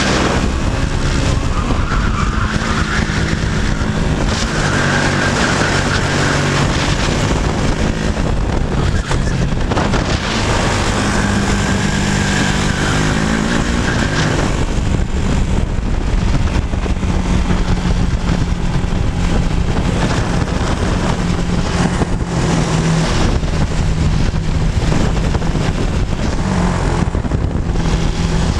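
KZ shifter kart's two-stroke engine heard onboard at race pace, its note climbing under acceleration and dropping on the shifts and under braking, over and over through the corners.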